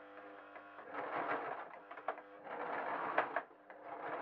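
Electric sewing machine stitching felt and fake fur in short runs. A steady hum at first, then three bursts of stitching about a second each, with brief pauses between.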